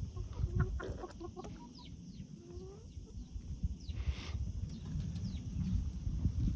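Chickens clucking and giving short, scattered calls, some gliding down in pitch, with the flock still uneasy after a suspected cat. There is a brief rustle about four seconds in.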